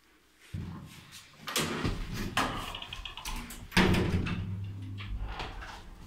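Doors of a 1978 ZREMB lift's cab sliding and clunking shut, a run of knocks and rattles with the loudest bang about four seconds in, followed by a brief low hum.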